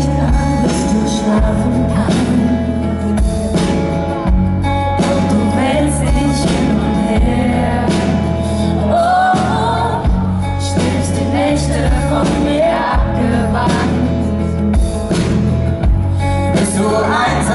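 Live pop band music from an unplugged set, with a sustained bass line, a regular beat and singing over it.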